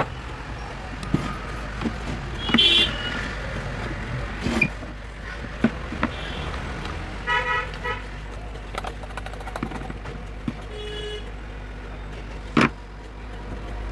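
Road traffic with vehicle horns honking several times in short toots, over a steady low hum, with a few sharp clicks and a knock near the end.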